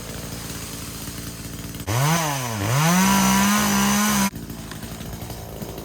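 Two-stroke chainsaw idling, then revved hard about two seconds in: the pitch rises, dips once and climbs back to a steady high full-throttle whine for about two seconds before dropping abruptly back to idle.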